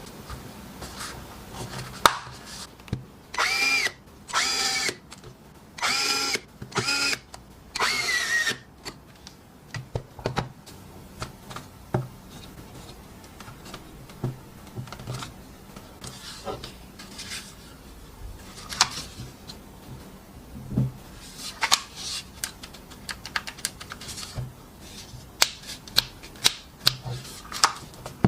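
EZ6225 cordless drill & driver motor run in several short bursts of about a second each, each a steady whine, the last rising in pitch. Scattered clicks and knocks of the tool being handled follow.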